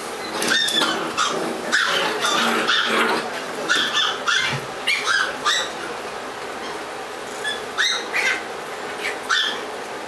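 Doberman Pinscher puppies yipping and barking as they play: a dense run of short high-pitched yips through the first half, then a few scattered ones near the end.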